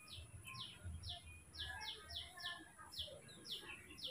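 A small bird chirping over and over: short, quickly falling chirps, about two or three a second, over a faint low rumble.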